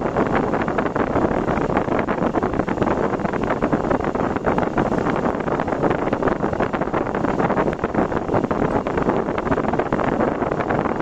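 Steady road and wind noise from a car driving, with no distinct events.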